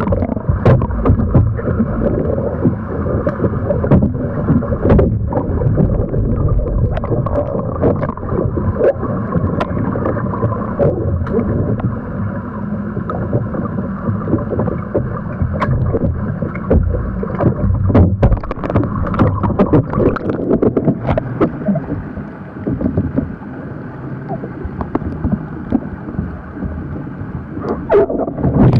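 Muffled underwater sloshing and bubbling of pool water around a capsized kayak, dotted with many small knocks and splashes from paddle strokes against the water and hull, heard through a submerged microphone. Near the end the sound opens up as the kayak rolls back to the surface.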